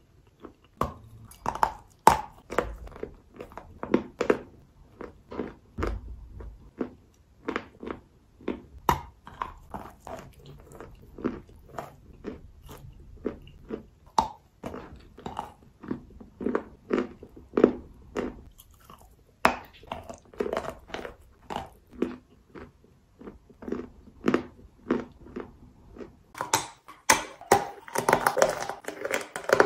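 Chalk being bitten and chewed close to the microphone: a steady run of gritty crunches and sharp clicks as the chalk breaks between the teeth. Near the end the crunching turns louder and denser.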